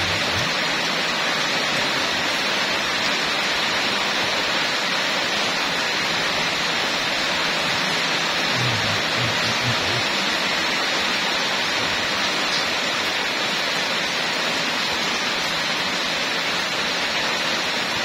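Heavy rain falling, a steady unbroken hiss, with a few brief low knocks about nine seconds in.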